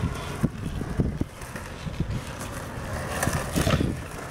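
Skateboard wheels rolling over concrete with a steady rumble, and a scattering of short knocks and scrapes from the board.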